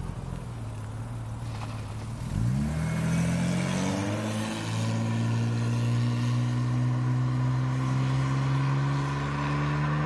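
BMW 635CSi's straight-six idling, then pulling away. The engine note rises about two and a half seconds in, dips briefly about four and a half seconds in, then climbs slowly as the car drives off.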